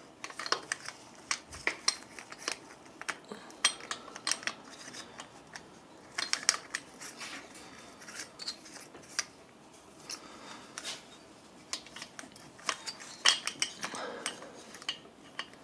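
Irregular light metallic clicks and clinks as chrome pushrod tubes and an S&S Quickee adjustable pushrod are handled and fitted between a Harley-Davidson V-twin's cylinder and lifter block.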